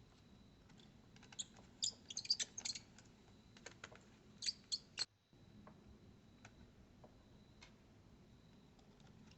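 Scattered small, sharp clicks and taps of laptop parts and tools being handled during disassembly of a Dell Latitude 7410, with a quick run of them about two seconds in and a few more near the middle. A faint steady high whine sits underneath.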